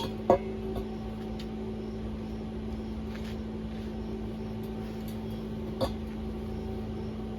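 Steady electrical hum, with two sharp knocks: one just after the start and one about six seconds in.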